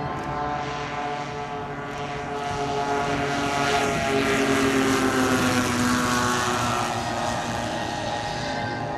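Four single-cylinder 38cc petrol engines of a giant 1/6-scale radio-controlled Avro Lancaster running with their two-blade propellers, growing louder as the model makes a low pass and dropping in pitch about four seconds in as it goes by.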